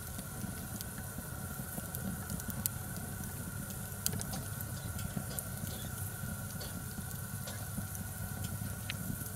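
Wood fire burning in a Bushbox folding steel twig stove, crackling with scattered sharp pops over a steady low background.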